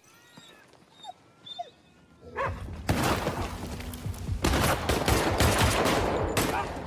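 Heavy gunfire in a shootout: after a quiet couple of seconds, a dense volley of gunshots breaks out about two and a half seconds in, many shots in quick succession.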